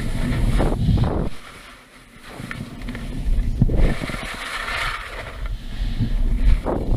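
Skis sliding and scraping on snow through a run of turns, in swells with a brief lull about two seconds in, over a low rumble of wind on the microphone.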